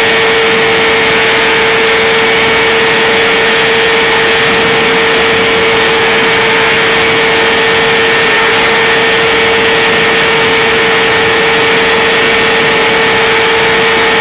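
2010 BMW S1000RR's inline-four engine held flat out at high revs, a steady loud drone with one strong unchanging tone, under heavy wind rush. The bike is holding its top speed, with no rise or fall in pitch.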